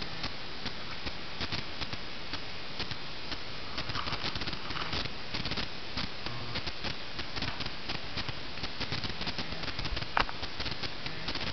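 Wood-shavings bedding rustling and crackling as hamsters move and dig through it, many small crackles over a steady hiss, with one sharper click about ten seconds in.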